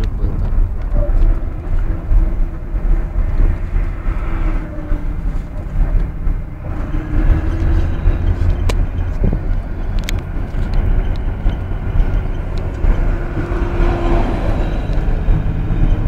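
Steady low rumble of a moving road vehicle's engine and tyres, with a couple of faint clicks midway.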